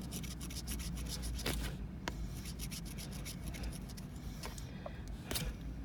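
Scratching the coating off a scratch-off lottery ticket, a rapid rubbing rasp in quick strokes, with a few sharper ticks later on.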